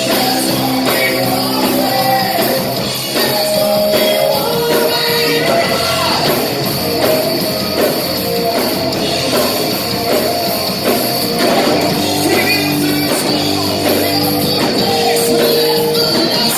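Rock band playing with a singer, loud and steady throughout.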